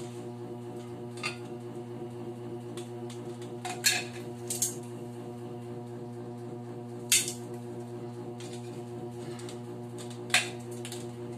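Metal tongs clinking sharply against an aluminium llanera a few times, about four loud clinks spread over several seconds, over a steady low hum.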